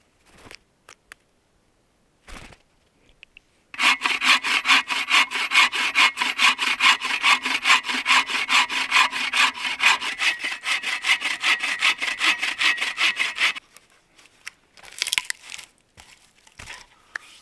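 A hand saw cutting through wood in quick, even back-and-forth strokes. The sawing starts about four seconds in and stops suddenly after about ten seconds, with a few light knocks and handling noises before and after it.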